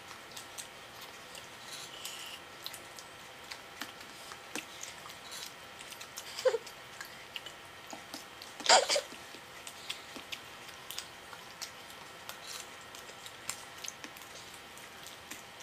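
Faint eating sounds: scattered small clicks and smacks of chewing and of fingers tearing dosa on plates. A short high-pitched vocal sound comes about nine seconds in.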